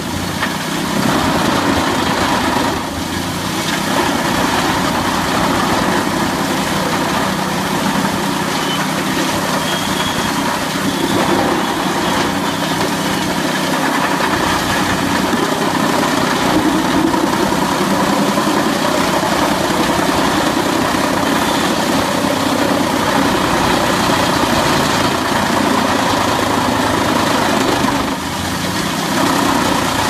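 Wood chipper's engine running steadily, a heavy mechanical drone, with brief dips in level about three seconds in and near the end.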